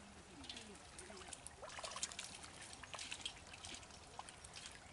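Small, irregular splashes and trickles of hands groping through shallow muddy pond water, feeling in the mud for fish.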